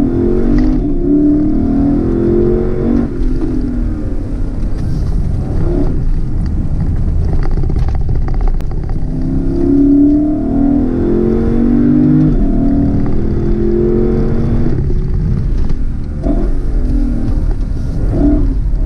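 Lexus LC500's naturally aspirated 5.0-litre V8 heard from inside the cabin, accelerating hard up a mountain road. Its note climbs through the revs in two pulls, one at the start and a longer one in the middle, broken by gearshifts.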